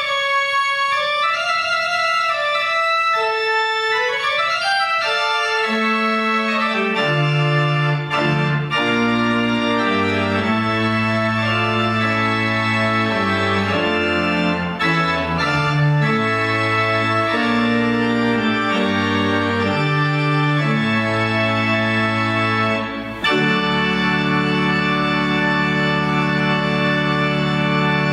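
Pipe organ playing slow sustained music: a single melodic line at first, then deep pedal bass and changing chords join about five seconds in. After a brief gap near the end, a full chord is held.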